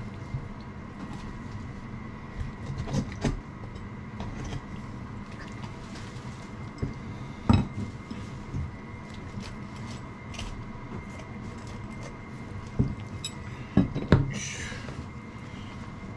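Kitchen knife and utensils knocking and clinking against a cutting board and dishes while a softshell turtle is butchered: scattered sharp knocks, the loudest about halfway through and several close together near the end, followed by a brief hiss. A steady hum runs underneath.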